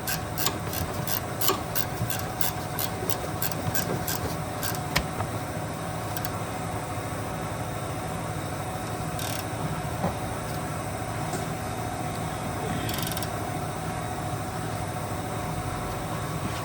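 Ratchet wrench clicking steadily, about three clicks a second, as the drop link's nut is run on; the clicking stops about five seconds in, leaving a steady mechanical hum.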